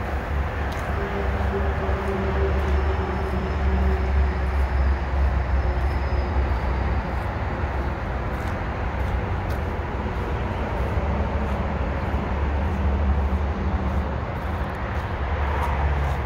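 Heavy truck diesel engine running steadily at idle, a continuous low rumble, here the Kenworth T880's Paccar MX-13 powering the crane; faint scattered ticks over it.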